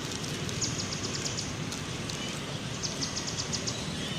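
Outdoor background noise with two runs of short, high chirps, several a second, one about half a second in and one nearly three seconds in, over a steady low rumble.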